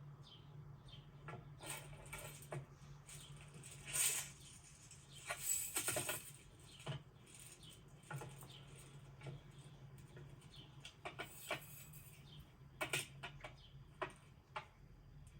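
Scattered light taps, clicks and scuffles, a few louder rustling bursts among them, over a low steady hum.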